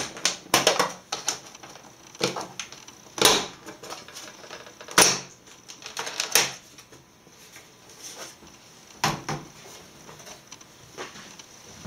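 Plastic back cover of a Dell Inspiron 2320 all-in-one being prised off by hand: a string of sharp snaps and knocks as its clips pop loose one after another, spaced a second or two apart, the loudest in the first half.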